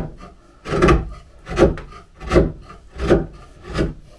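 Sharp wood chisel pushed by hand, paring out a hinge mortise in hard brown oak: about five short strokes, one every three-quarters of a second.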